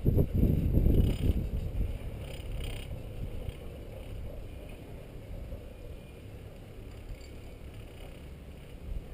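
Low rumble of riding an open chairlift, with wind buffeting the microphone, gusty and loudest for the first two seconds, then settling to a quieter steady rumble.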